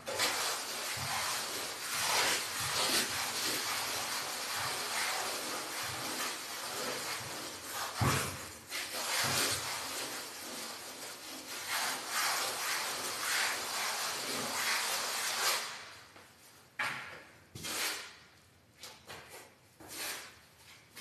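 A plasterer's hand tool scraping and rubbing over fresh fine finishing plaster on a wall. The rasping is steady for most of the time, then breaks into a few short separate strokes near the end.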